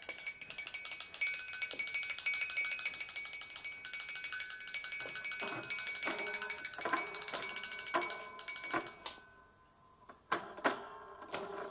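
A metal bell ringing in a fast, even rattle of strikes, then slower single struck notes; it cuts off about nine seconds in, with one more ring near the end.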